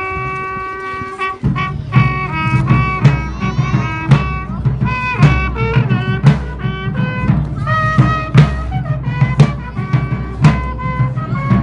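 Brass band music: a long held brass note, then about a second and a half in a drum beat comes in under a brass melody, with heavy drum accents about once a second.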